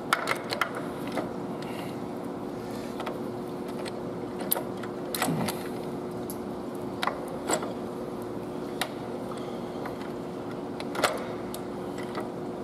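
Metal parts clinking and knocking at irregular intervals as rocker levers and the rocker shaft are handled and seated on a Cummins ISX diesel cylinder head, the loudest knock near the end. A steady hum runs underneath.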